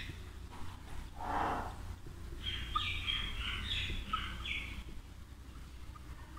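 Whiteboard marker squeaking against the board in a quick run of short strokes as words are written, over a steady low hum.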